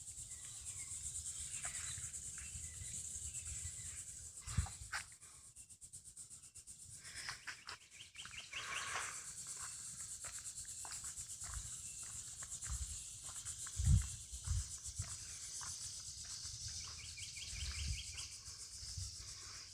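Outdoor summer ambience: a steady high insect drone with birds chirping in quick runs, twice, and a few dull low thumps, the loudest about two-thirds of the way through.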